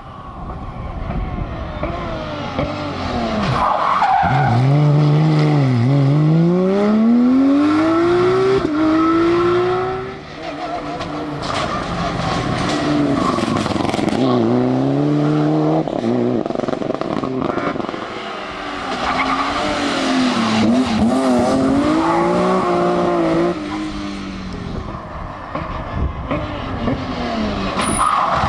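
Rally cars driven hard, engine notes repeatedly climbing and then dropping sharply as they shift and brake, with a fresh surge after each dip as another stretch of flat-out driving comes past.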